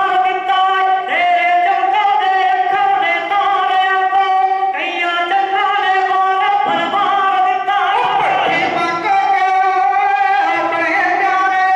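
Devotional singing with long held, gliding notes over a steady sustained tone.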